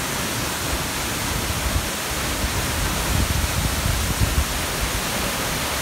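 Tall waterfall crashing onto rocks and a shallow pool: a steady, loud rush of falling water, with the low end swelling a little about halfway through.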